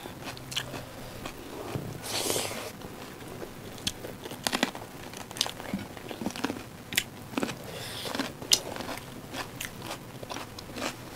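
Close-miked eating: crisp, irregular crunches as raw cucumber is bitten and chewed, with a longer crunch about two seconds in.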